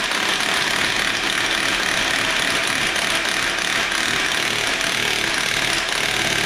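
Cordless impact wrench hammering continuously as it drives home a harmonic balancer bolt on an engine's crank snout, cutting off near the end as the bolt stops turning.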